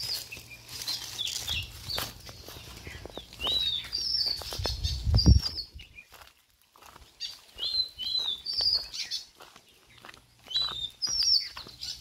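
Small birds chirping over and over with short high calls, against steps and rustling through vegetation. A loud low rumble swells and stops about five seconds in.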